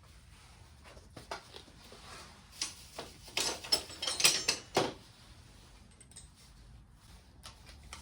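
Scattered metal clicks and clinks of hand tools working on the rocker arm assembly of a Kubota V2203 diesel's cylinder head. The clicks are busiest from about three to five seconds in.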